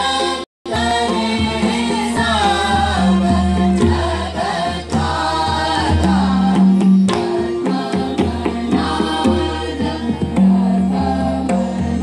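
Group of voices singing a dhrupad in unison over a steady tanpura drone, with strokes of a pakhawaj barrel drum. The sound drops out completely for a split second about half a second in.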